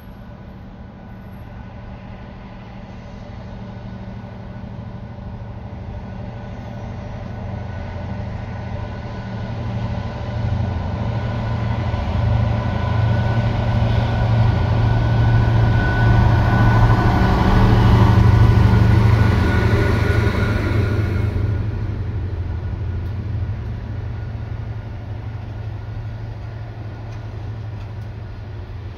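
GBRf Class 69 diesel-electric locomotive 69004, its EMD 12-cylinder two-stroke engine labouring under load, growing louder as it approaches and loudest about two-thirds through as it passes. Afterwards the engine sound eases off to the lighter running of its train of engineers' wagons rolling by.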